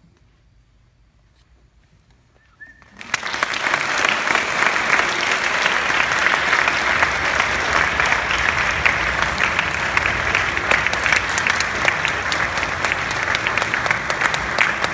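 A brief hush after the final notes of a string orchestra, then about three seconds in the audience breaks into loud, steady applause with many sharp individual claps.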